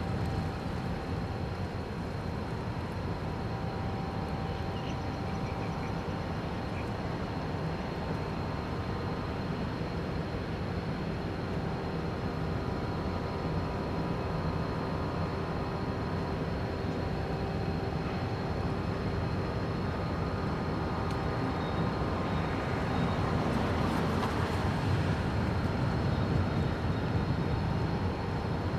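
Steady low rumble of ship engines and machinery, with faint steady whining tones above it, growing a little louder near the end.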